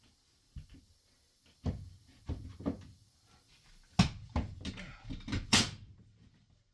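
Irregular knocks and thuds on wooden framing, about eight strikes over a few seconds, the loudest about four seconds in: blows fixing wooden backer blocking between floor joists.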